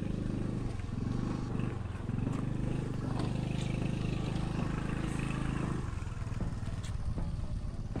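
Motor scooter engine running steadily at low speed while riding, with a few light knocks.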